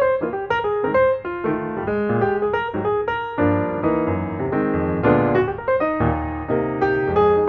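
Piano music, a quick run of struck notes and chords.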